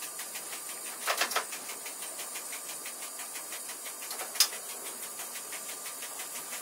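Running noise heard inside the driving cab of a double-deck regional train: a steady hiss with a faint regular ticking about five times a second, a short cluster of clicks about a second in and one sharp click a little past four seconds.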